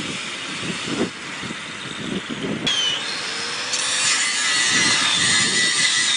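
A power tool cutting into the storm-toppled fence, its steady whine growing louder from about four seconds in. Gusty storm wind buffets the microphone underneath.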